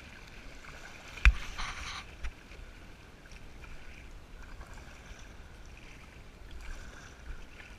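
Kayak paddle strokes splashing and swishing through river water, with one sharp knock about a second in. A steady low wind rumble sits on the microphone throughout.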